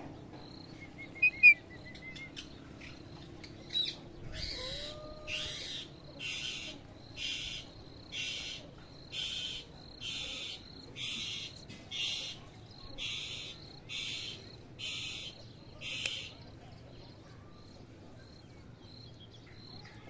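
Rose-ringed (Indian ringneck) parakeet calling: two short, loud chirps just over a second in, then a steady, even run of about fifteen calls, a little more than one a second, that stops about four seconds before the end.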